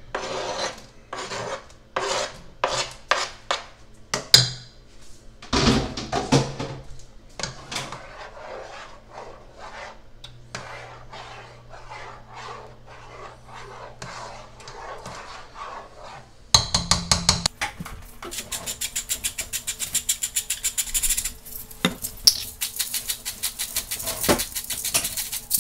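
A spoon scraping and tapping cooked fish pieces off a plastic cutting board into a pot, with sharp clicks, then stirring and scraping the thick bisque in the pot. From about two-thirds of the way through, a hand pepper mill grinds over the pot in a fast run of rasping clicks, the loudest part.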